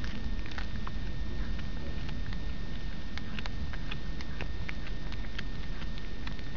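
Irregular light ticks and rustles, like small movements in forest ground litter, over a steady low rumble, with a faint steady high whine throughout.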